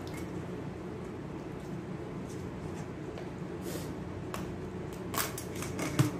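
Hands cracking and peeling the shell of a boiled crab: scattered small crackles and clicks, coming quicker about five seconds in, with a louder knock near the end, over a steady low hum.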